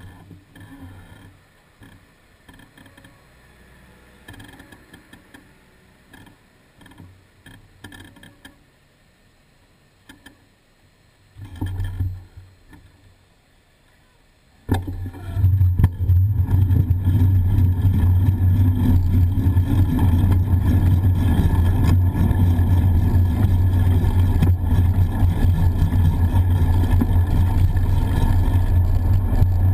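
Faint street traffic while the bicycle stands at the lights. About halfway through, a loud, steady rumble of wind and road noise on the bike-mounted camera's microphone sets in as the bicycle moves off and rides along.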